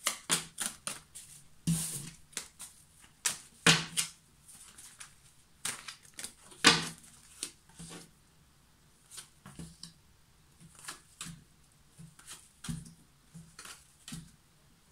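A tarot deck being shuffled by hand, with quick irregular card slaps and clicks, then cards dealt one at a time onto a wooden desk, each landing with a light tap or slide.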